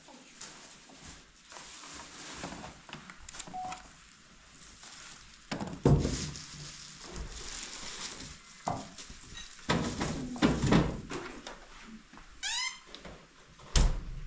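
Irregular knocks and thuds with scattered clatter, the loudest strikes about six, ten, eleven and fourteen seconds in, and a short rising squeak shortly before the last thud.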